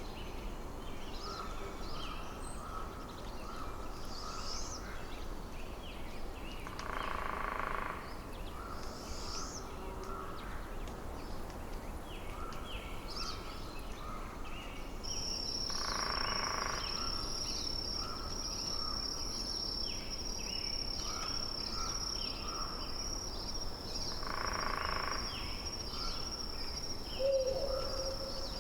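Forest ambience: small birds chirping and calling over a steady low background hiss. Four louder, longer calls stand out, and from about halfway a thin high steady tone runs on beneath the chirps.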